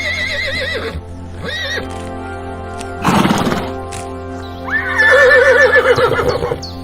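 A horse whinnying over steady background music: a wavering call at the start, a short one about a second and a half in, a brief noisy burst around three seconds, and a long whinny from about five seconds in.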